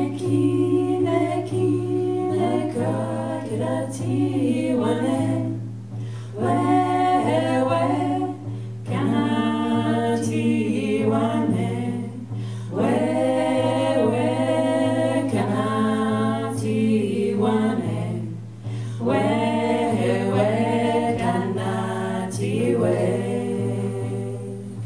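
A group of women singing together without instruments, in sung phrases broken by short pauses for breath.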